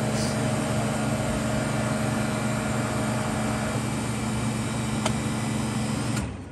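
Pool filter pump running with a steady mechanical hum, a single click about five seconds in, then the pump shutting off and the noise dying away near the end.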